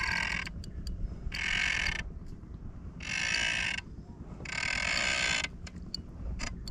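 Fishing reel buzzing in four bursts of about half a second to a second each, a fast ratchet-like rasp, as line is worked against a big fish during the fight.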